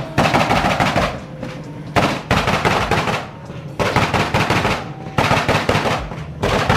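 Modified Audi TT's engine revved in short bursts, its exhaust letting off rapid strings of loud pops and bangs: about five bursts, each about a second long, with brief gaps between them.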